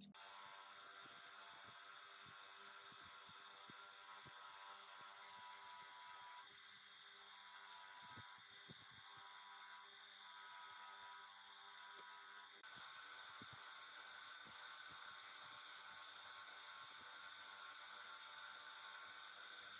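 Bench grinder motor running steadily, its spinning brush wheel scraping the copper-wound armature of an electric chainsaw motor, with irregular scratchy contacts as the armature is pressed against it.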